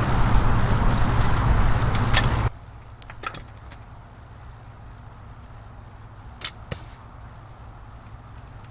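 Loud steady noise over a low hum that cuts off suddenly about two and a half seconds in, leaving a quiet background with a few sharp clicks.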